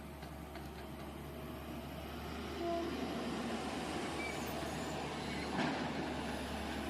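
Tata Hitachi excavator's diesel engine running steadily at a digging site, with one sharp knock a little over five seconds in.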